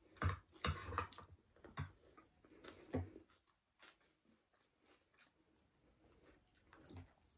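Close-up eating sounds: chewing and mouth noises, with scattered short clicks, busiest in the first three seconds and fading to almost nothing in the middle.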